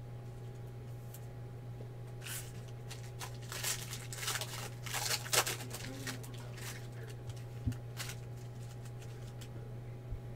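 Foil trading-card pack wrapper crinkling and tearing as it is opened and handled, in clusters of sharp crackles for a few seconds in the middle, with a soft knock near the end and a steady low hum underneath.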